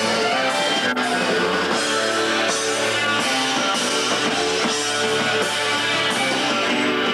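Live rock band playing without singing: electric lead guitar over a strummed acoustic guitar and a drum kit keeping a steady beat. A brief sharp click about a second in.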